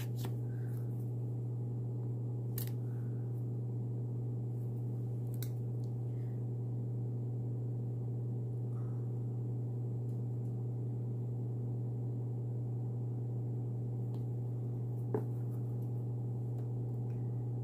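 A steady low hum, with a few faint clicks and taps from nail-stamping tools being handled: a silicone stamper pressed onto a metal stamping plate and then onto a nail swatch.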